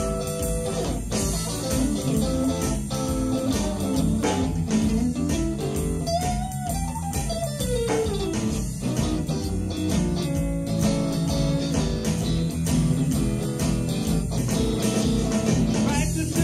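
A blues band jamming: electric guitar playing over bass guitar and drums, with a drawn-out note that bends up and back down around the middle.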